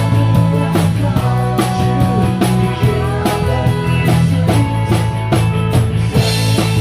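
Live rock band playing: drum kit, bass guitar and guitars, with a cymbal crash about six seconds in.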